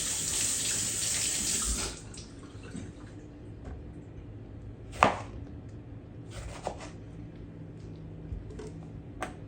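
Kitchen faucet running water over a lemon being rinsed, shut off about two seconds in. A few sharp knocks follow, the loudest about five seconds in.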